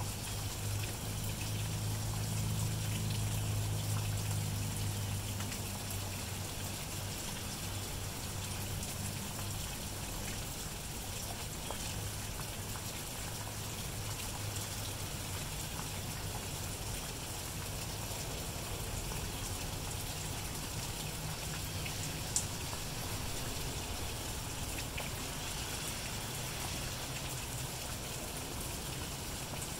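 Steady light rain falling on grass and road, an even fine hiss of drops. A low steady hum sits under it, strongest for the first several seconds and fading, then faintly back near the end. There is one small sharp tick about two-thirds of the way through.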